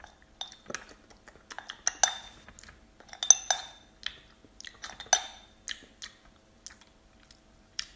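A drinking glass clinking, an irregular run of sharp clinks a few times a second, each with a short ring.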